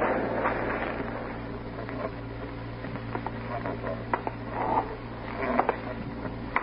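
Steady low hum and hiss of an old radio broadcast recording, with a few faint taps and clicks about two-thirds of the way through.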